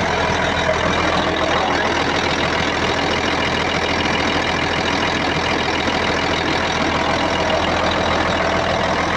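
Caterpillar 966H wheel loader's diesel engine running steadily at an even speed, with no surging up and down: the erratic acceleration, traced to the engine ECM, is cured with the replacement ECM fitted.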